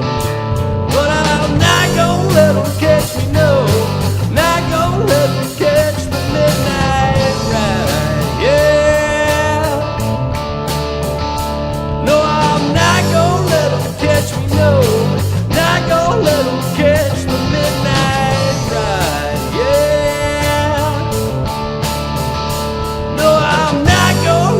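Rock band playing an instrumental passage: a lead guitar bends and slides between notes over a steady bass and drums.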